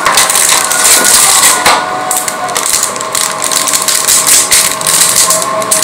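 Clear plastic bag crinkling continuously as a remote control wrapped in it is handled, with the cardboard packaging rustling.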